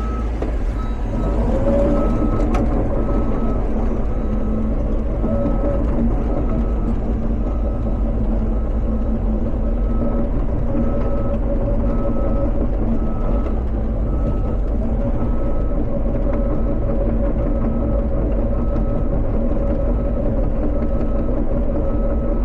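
Cat 320 excavator's diesel engine running under load as the machine travels on its tracks. The engine picks up about two seconds in and then holds steady. Its travel alarm beeps at an even pace, a little more than once a second.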